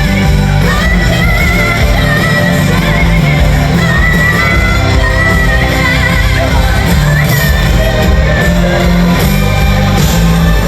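Live pop concert: a band playing loudly with a heavy bass line and a wavering high vocal line, and crowd shouting in a large venue. The music cuts off abruptly at the end.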